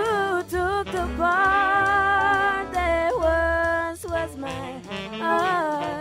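A woman singing a slow song over a soft instrumental backing, holding long notes and letting some of them waver with vibrato.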